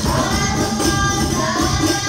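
Sholawat devotional singing into a microphone, backed by a hadroh ensemble of rebana frame drums with jingles and a large bass drum playing a steady, busy rhythm.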